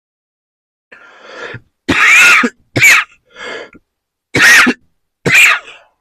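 A person coughing four times, loud and sharp, with a breath drawn in before the first cough and another between the second and third.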